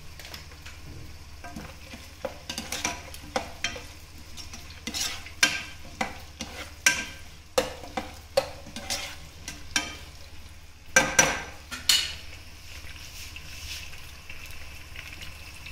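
A spatula stirring and scraping chopped onions and whole spices frying in a pot, with a run of sharp knocks against the pot, loudest about eleven seconds in, over a light sizzle.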